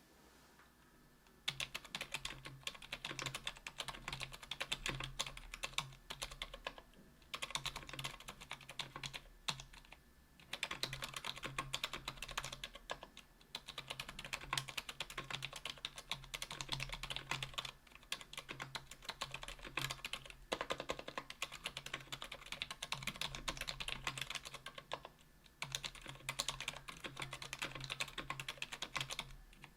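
Typing on a 60% aluminium mechanical keyboard with stock Kailh BOX Silent Pink linear switches and GMK keycaps: fast, continuous keystrokes in runs with brief pauses, starting about a second and a half in.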